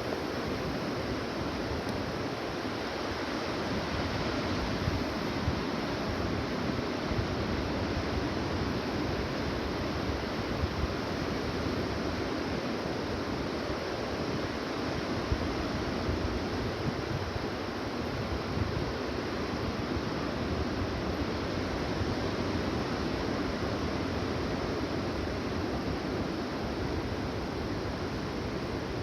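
Steady rushing wash of small ocean surf, with low rumble underneath.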